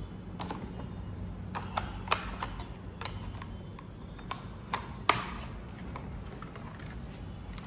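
Hard plastic clicks and taps as the battery compartment cover on the underside of a Logitech POP Keys keyboard is handled and snapped shut. There are a dozen or so sharp clicks, with the loudest snap about five seconds in.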